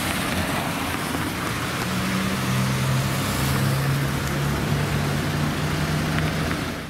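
Street traffic on wet asphalt: a steady hiss of car tyres, with a car engine's low hum from about two seconds in until near the end.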